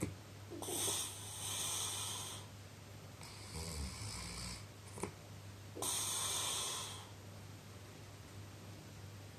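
Snoring: three long snores about two and a half seconds apart, the second with a low rumble in it, then a quieter stretch of breathing.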